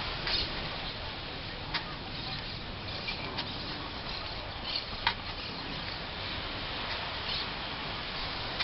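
Shovels digging in sand: scraping, chopping strokes with a few sharp clicks, over a steady outdoor hiss.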